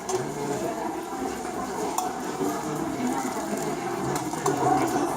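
Busy market hall ambience: indistinct background chatter with occasional clinks of metal or glass wares.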